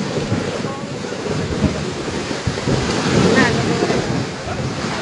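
Steady rushing noise, with the voices of a crowd mixed in.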